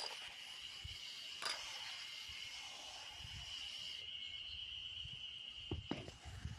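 Faint, steady high-pitched insect trill. A sharp click comes about one and a half seconds in, and the trill stops near the end as a few knocks come in.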